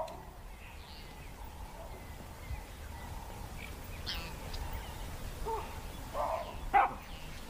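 Wild bush ambience with a few short, harsh bird calls scattered through it, the loudest one near the end.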